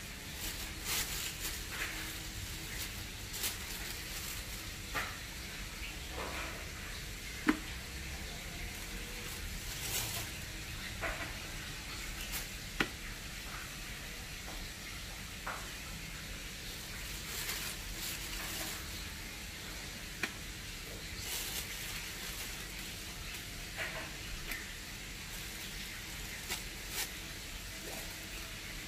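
Food frying in hot oil: a steady sizzle, with scattered short clicks and taps of a utensil stirring in the pan.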